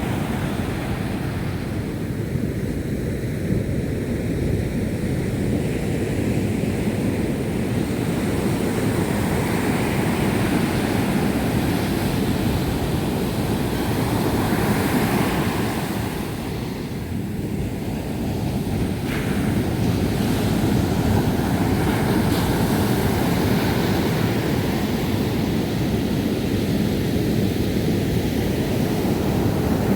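Sea surf washing ashore: continuous wave noise that swells and eases every few seconds, with wind rumbling on the microphone.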